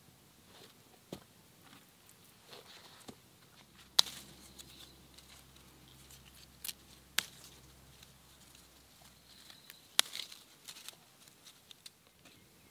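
Bay laurel leaves being picked off the shrub by hand: a few sharp snaps as the leaf stems break, with faint leaf rustling between them.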